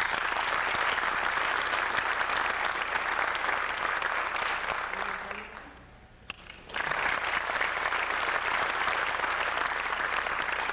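Audience applauding in two rounds: the first dies away about five seconds in, and the second starts about a second later.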